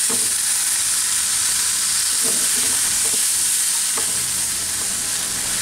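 Chicken mince, shredded cabbage and onion sizzling in hot oil in a nonstick frying pan as they are stir-fried with a spatula, a steady hiss with a few light spatula knocks against the pan.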